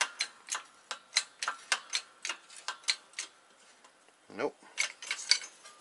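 Bottle jack of a hydraulic shop press being pumped by hand, its handle and pump clicking about three times a second as it presses on a control arm bushing.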